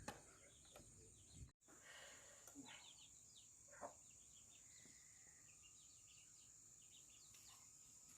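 Near silence with faint outdoor ambience: small birds chirping and a steady high insect drone.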